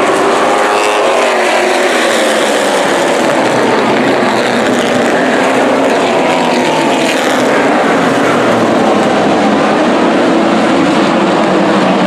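A pack of street stock race cars' V8 engines running hard together, several engine notes rising and falling as the cars pass through the turn.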